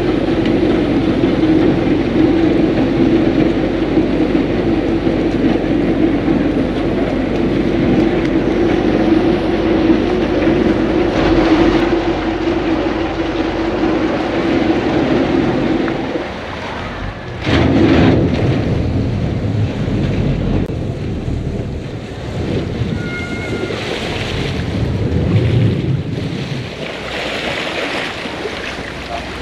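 Vaporetto water bus under way: a steady engine drone with water rushing and splashing along the hull and wind on the microphone. About sixteen seconds in, the engine note drops away, leaving mostly water wash and wind.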